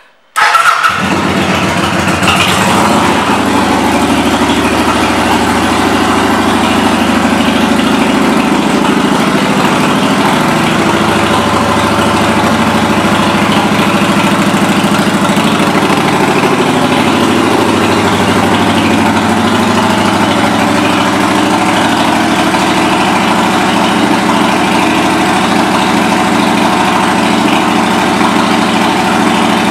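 Kawasaki Vulcan 900 Classic's V-twin, fitted with Vance & Hines exhaust pipes, starts about half a second in, catching at once, then idles steadily.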